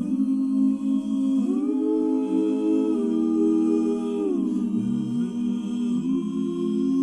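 Voices humming wordless sustained chords, starting abruptly out of silence and gliding to new chords about a second and a half in and again about four seconds in: the a cappella opening of a gospel song.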